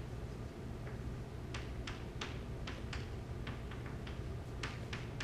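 Chalk tapping and scratching on a blackboard as a chemical structure is drawn: a run of short, irregular taps, several a second in places, starting about a second and a half in.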